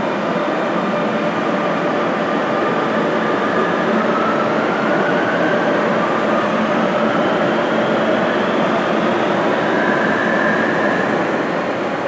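Series 9000 electric metro train pulling out of the station and accelerating past, its wheels rumbling on the rails, with a rising whine from the traction motors. The sound eases near the end as the last cars go by.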